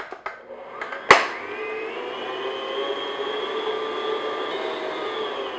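Stand mixer with a paddle attachment beating egg yolks into creamed butter and sugar in a glass bowl. A sharp click about a second in, then the motor comes up to speed and runs steadily, winding down near the end.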